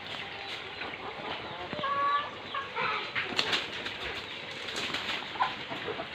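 Laying hens clucking in a coop, short scattered calls, with a brief clattering flurry about three and a half seconds in, over the steady splash of water pouring from a pipe into a catfish pond.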